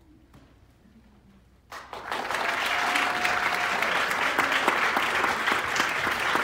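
A hush, then an audience breaks into applause nearly two seconds in, a dense, steady clapping that stays loud.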